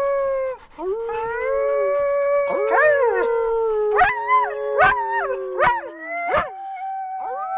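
A large black long-haired dog howling in long drawn-out notes, with two howls at different pitches overlapping at times. Short sharp yelps break in several times in the second half.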